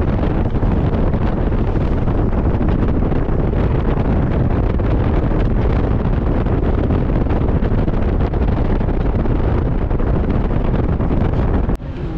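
Wind buffeting the microphone and road noise of a moving vehicle, a loud steady low rumble that cuts off suddenly near the end.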